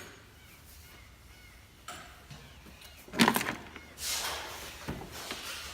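Parts being handled in a car's engine bay: a click about two seconds in, then a loud, short squeaky scrape a second later, followed by rustling.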